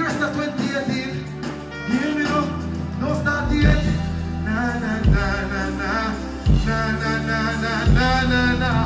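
Live dancehall music over the stage PA: a male vocalist singing into a microphone over a live band. From about three and a half seconds in, deep bass hits land about every second and a half.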